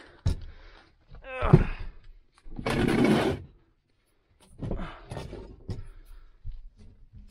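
A person moving about in an attic: a sharp knock, then a short falling voice-like grunt and a loud rough breath or rustle, then scattered small knocks and rustles.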